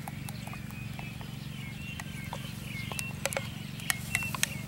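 Irregular sharp clicks and taps from hands at work, over a steady low hum, with a few short high chirps about two seconds in and again near the end.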